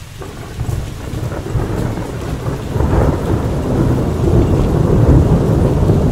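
Thunderstorm sound: a long, deep rumble of thunder over rain, building through the first few seconds and staying loud.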